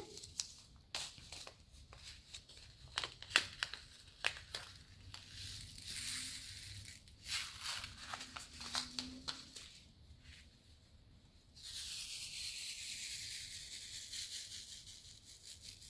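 Small plastic zip bag of AB square diamond-painting drills being opened and handled: crinkling plastic with sharp little clicks. From about two-thirds of the way through comes a steady rustling hiss as the tiny resin drills pour out.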